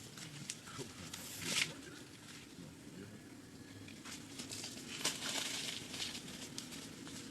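Rustling and crinkling with scattered light clicks, louder twice: about a second and a half in, and again about five seconds in.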